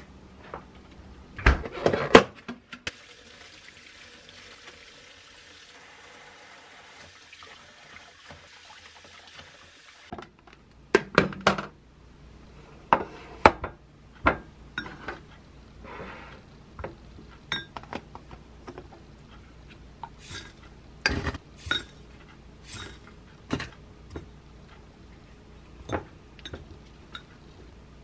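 Kitchen handling sounds: plastic containers and jars knocked and set down while taking food from a refrigerator, then a spoon scooping yogurt and clinking against a glass mug. The knocks and clinks come irregularly, with a soft steady hiss between the first knocks and the change to the spooning.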